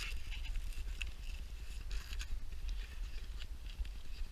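Scattered small clicks and rustles of hands handling the battery, wires and plastic connectors inside a foam RC airplane's battery bay, over a steady low rumble.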